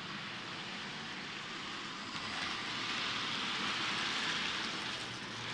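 Model railway freight train of tank wagons rolling past on the track, a steady rattling rush of small wheels on rails that swells about two seconds in as the wagons pass closest and eases off near the end.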